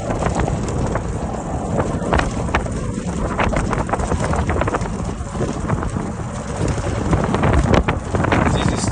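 Wind buffeting the microphone: a loud, gusty rush with many short crackles and pops.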